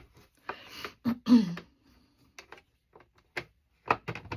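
Hard plastic divider clicking and knocking against a plastic storage box as it is forced into its slot, with a short low hum of effort from the person about a second in.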